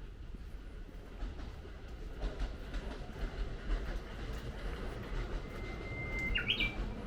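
Keikyu electric train approaching along the line and getting steadily louder, its wheels clicking over the rail joints. A brief high chirp sounds near the end.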